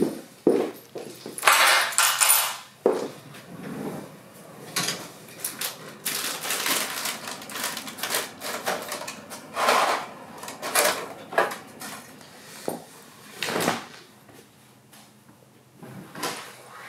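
Irregular clatter and rustling of household things being handled: a pull-out kitchen drawer full of food packets rummaged through, packages crinkling and items knocking together in uneven bursts.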